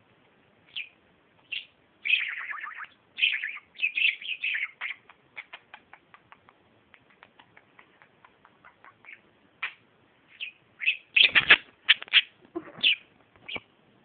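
Pet budgerigars chattering in short, sharp chirps, with a run of quick, faint clicks in the middle. About eleven seconds in comes a louder, denser flurry of chirps with a low thump.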